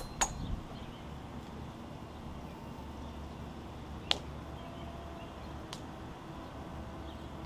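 Aerial man lift's boom moving under its control panel: a low steady hum, with two light clicks at the start and a sharp click about four seconds in.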